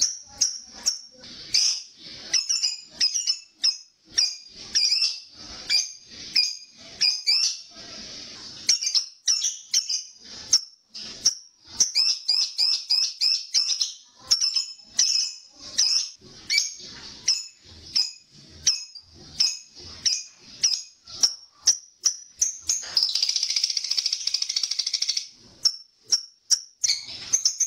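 Lovebird calling in a fast series of short, shrill chirps. About 23 s in it breaks into a continuous chattering trill for about two seconds, the long chatter that bird keepers call ngekek.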